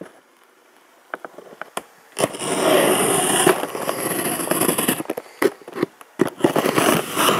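Rustling and crackling with many sharp clicks and knocks, starting about two seconds in after near quiet.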